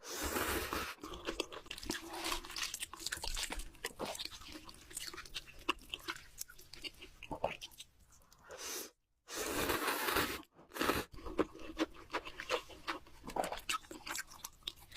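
Close-miked chewing and crunching of food: a person eating, with many short crunches and mouth clicks and a couple of brief pauses in the middle.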